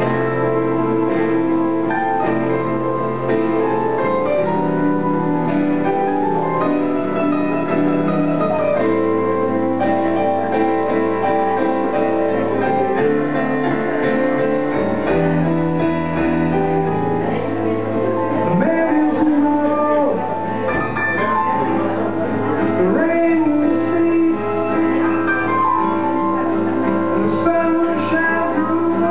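Slow jazz ballad played live on piano, with sustained bass notes under held chords, and a woman's singing voice coming in over it during the second half.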